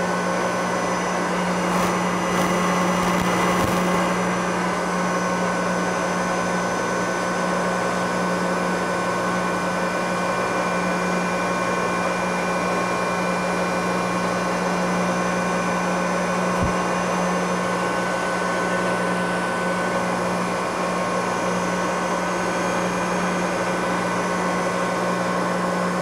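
Supermax YCM-40 CNC knee mill's spindle running steadily while the end mill cuts a metal part, a constant motor whine made of several steady tones. There is a brief high hiss a few seconds in and a single short knock about two-thirds of the way through.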